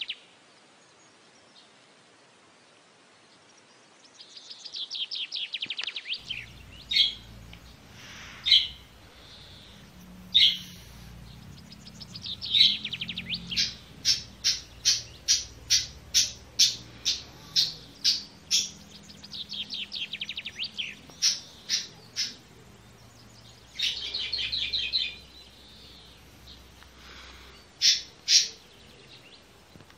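Young budgerigar chicks calling: several buzzy trains of rapidly repeated high chirps, each lasting one to two seconds, and in the middle a run of short sharp chirps about two a second.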